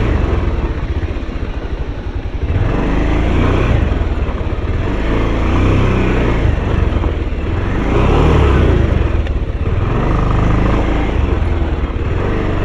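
Motorcycle engine running as the bike rides slowly over a rough, muddy road, the throttle opening and easing off several times so the engine noise swells and falls, loudest about eight seconds in.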